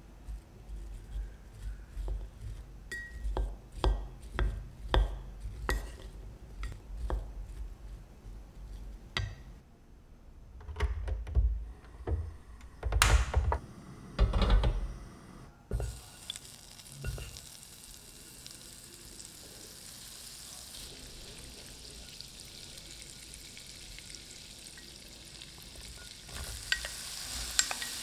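Kitchen handling sounds: bowls and utensils knocking and clicking on a wooden table, with the loudest knocks when a pan goes onto a portable gas cassette stove and the burner is lit. From about halfway on there is a steady hiss of the burner and the pan heating. Near the end diced apple is tipped into the hot pan and sizzles, the hiss growing with crackles.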